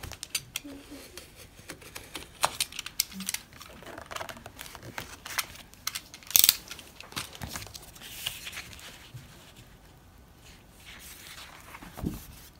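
Paper pad being handled and a gold-foil sheet pulled out of it: intermittent crinkling and rustling of paper, with light taps and clicks.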